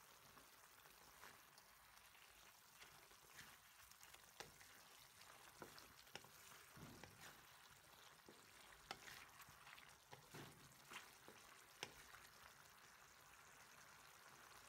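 Pork pieces frying faintly in a pan with a little liquid, a steady soft sizzle. A wooden spatula stirs them, giving scattered light clicks and scrapes through the middle.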